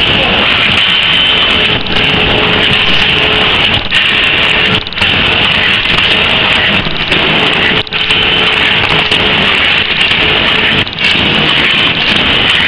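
Automatic paper cup forming machine running at high speed: a loud, steady mechanical noise with a strong high hiss, dipping briefly about every three seconds.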